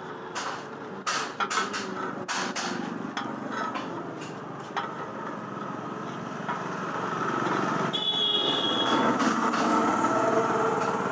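Sharp metallic clinks and knocks as a flat iron bar is worked against the steel pins and plate of a hand-operated scroll-bending jig, mostly in the first few seconds. From about halfway a steady mechanical drone, like a passing motor vehicle, grows louder.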